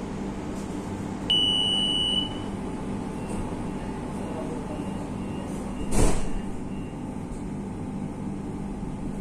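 Inside a Madrid Metro Line 7 train car: a steady hum, a loud high electronic beep lasting about a second near the start, faint quick pips after it, and a loud thud about six seconds in.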